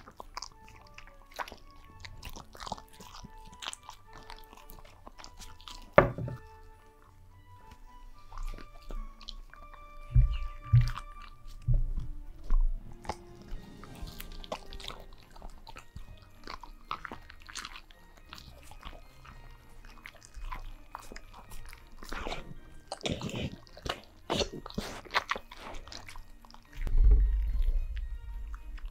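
Huskies biting, crunching and chewing homemade dog cookies close to a microphone, over background music. A sharp knock comes about six seconds in, and a dull low thump near the end.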